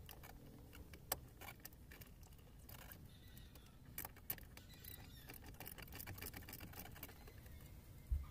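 Faint, irregular small clicks and rustling of hands working wiring and a 10 mm body-ground bolt under a car's dashboard. A sharper click comes about a second in and a couple more around four seconds in, and a dull knock comes near the end.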